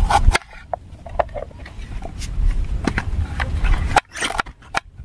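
Scattered short knocks and clicks of hand food preparation, garlic and onion being worked into a masala, over a low rumble. The sound drops off abruptly shortly after the start and again near the end.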